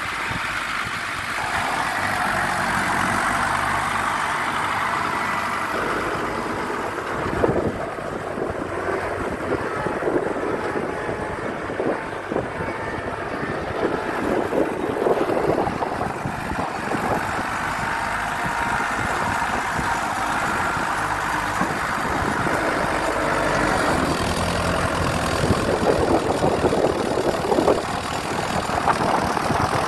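Iseki 6000 tractor's diesel engine running under load as its front-end loader digs into a dirt pile. The engine note shifts up and down as it works, with a few sharp knocks; the loudest knock comes about seven seconds in.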